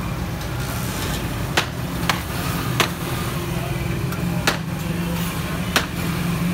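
Five sharp knocks at uneven intervals, like utensils striking metal or a blade chopping, over a steady low rumble of street noise.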